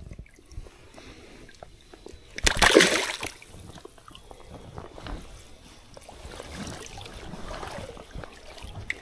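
Shallow river water sloshing and splashing, with one louder splash about two and a half seconds in.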